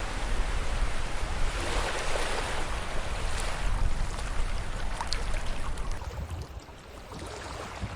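Surf washing onto a beach, with wind rumbling on the microphone; the noise swells about two seconds in and softens after about six seconds.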